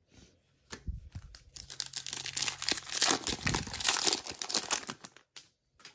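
Foil wrapper of a Panini Prizm trading card pack being torn open and crinkled by hand: a dense crackle that builds up about a second in and lasts about four seconds.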